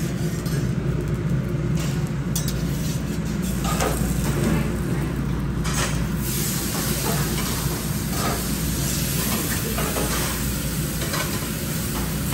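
Food sizzling on a hot cook-to-order grill while it is stirred, with short scrapes and clicks of the cooking utensils, over a steady low hum. The sizzle grows louder about halfway through.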